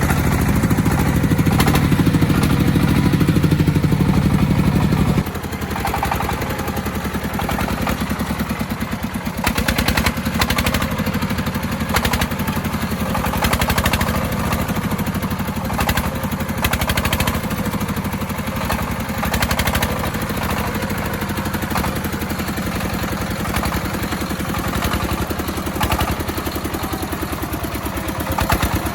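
Engine of an agricultural haul vehicle running with a rapid, even pulse. It is louder for about the first five seconds, then drops abruptly to a quieter steady run, with occasional knocks and clatter.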